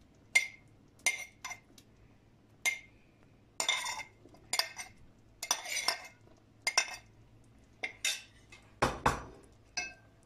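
A spoon clinking and scraping against a glass bowl, about a dozen irregular sharp clinks, as cooked chicken pieces are pushed off into the pot. A heavier knock comes about nine seconds in.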